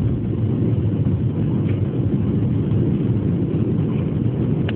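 Steady low rumble of an airliner's engines and its wheels rolling on the runway, heard from inside the passenger cabin.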